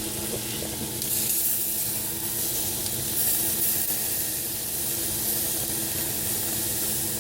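Food sizzling on a hot stovetop, a steady hiss that swells louder a couple of times, with a faint steady low hum underneath.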